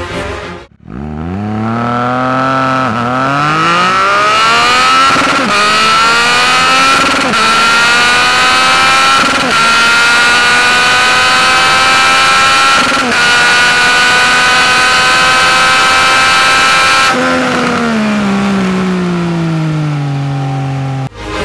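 Triumph Speed Triple RS 1050 inline-three motorcycle accelerating at full throttle, revs climbing through about five quick upshifts, each gear pulling more slowly. Near the end the throttle closes and the engine winds down as the bike slows.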